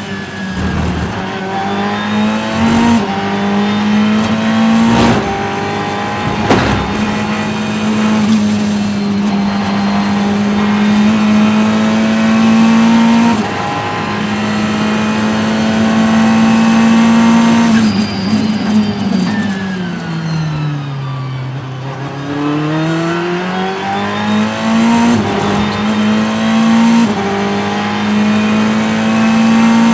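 Ferrari GT3 race car's V8 engine heard from inside the cockpit at racing speed, pitch climbing through the revs with quick upshifts. About two-thirds of the way through it winds down for a slower corner, then accelerates hard again.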